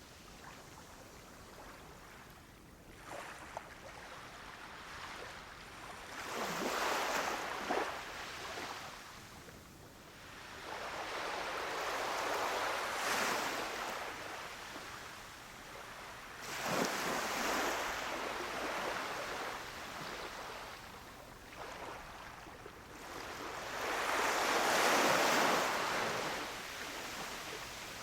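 Gentle waves washing onto a beach, the surf noise swelling and falling back four times about five to six seconds apart, loudest near the end.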